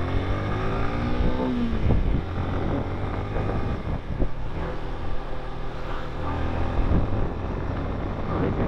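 Motorcycle engine pulling under way, its pitch rising over the first second and a half, then a gear change and steadier running with a few more small rises in revs.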